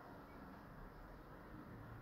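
Near silence: faint, even background hiss with no bell strikes.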